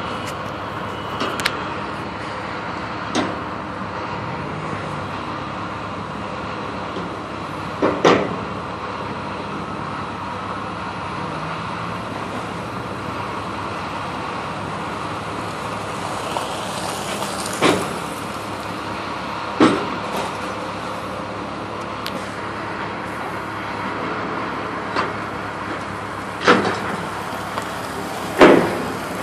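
Demolition excavator running steadily while its grapple tears at a steel roof frame, with several sharp metallic clanks and crashes a few seconds apart, the loudest near the end.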